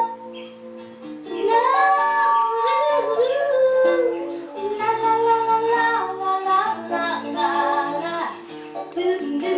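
A love song: a woman's high singing voice holding long, sliding notes over instrumental backing. It is softer for about the first second, then comes in fully.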